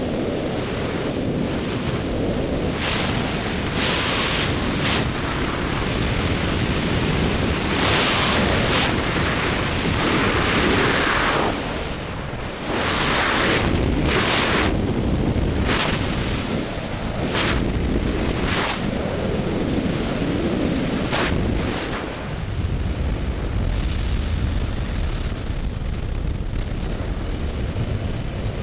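Freefall wind rushing over a skydiver's camera microphone: a loud, continuous rush with repeated brief louder gusts through the middle stretch.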